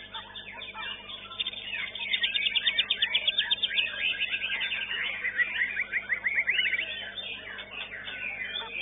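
White-rumped shama (murai batu) singing at a songbird contest: fast, varied phrases, with a rapid run of repeated notes about two seconds in and another quick series midway.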